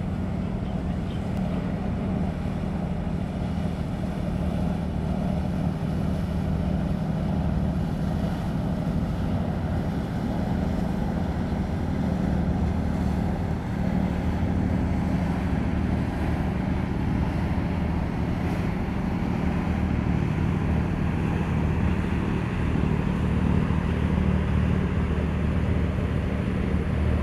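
Steady low engine drone from a 2,800 TEU container ship under way at slow speed, mixed with wind, growing slightly louder toward the end as the ship comes closer.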